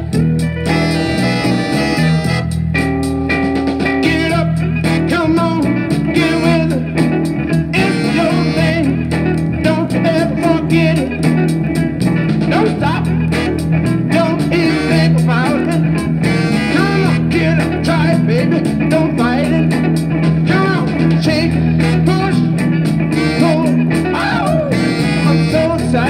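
A 45 rpm vinyl single playing on a turntable: an upbeat soul-style song with guitar, bass and a singing voice.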